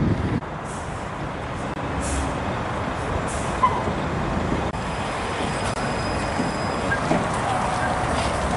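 Street traffic at a tram stop: a tram moving on its rails, with two short hisses of air about two and three seconds in. An articulated city bus then passes close, and a faint steady whine comes in near the end.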